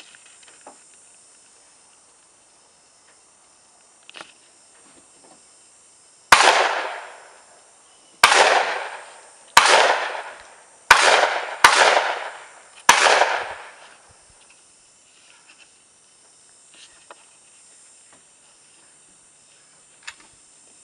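Six gunshots from a long gun, spaced one to two seconds apart, each trailing off over about a second.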